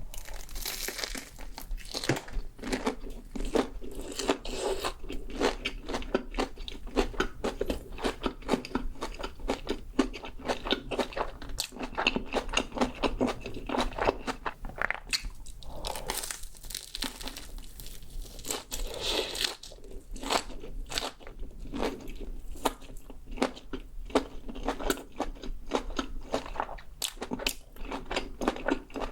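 Close-miked eating sounds: a steady run of crisp crunches and chewing as crunchy food is bitten and chewed.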